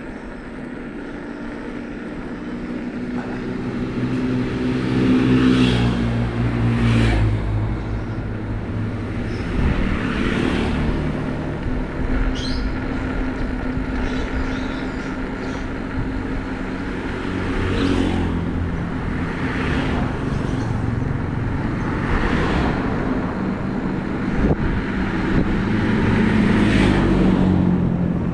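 Tyres rolling on a road while motor vehicles pass, their engine notes rising and falling with the loudest pass about five to seven seconds in.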